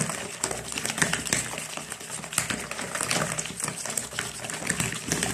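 Plastic balloon whisk beating eggs and sugar by hand in a plastic bowl: rapid, rhythmic clicking and tapping, several strokes a second, as the mixture is whipped until the sugar dissolves.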